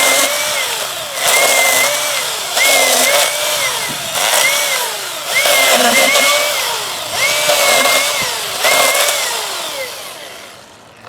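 Milwaukee M18 battery-powered chainsaw running in about seven repeated surges, its electric motor whine climbing, holding and then dropping away between them. It winds down near the end.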